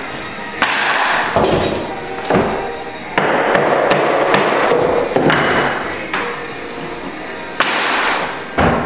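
About seven sharp knocks, each ringing out briefly, as oak flooring planks are hammered tight and fastened: a hammer striking the plank edge and a pneumatic nailer firing into the boards.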